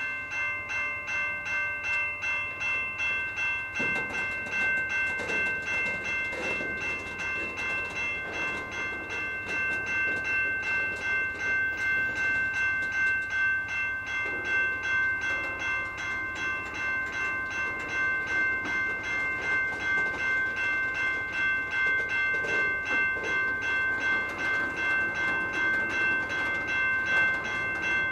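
A grade-crossing bell ringing steadily, about one and a half to two strokes a second, while the tank cars of a freight train roll slowly past with their wheels clicking over the rail joints.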